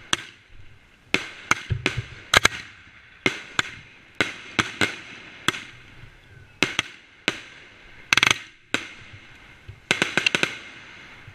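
Fireworks going off close by: about twenty sharp bangs at irregular spacing, with a rapid cluster of cracks about eight seconds in and another about ten seconds in.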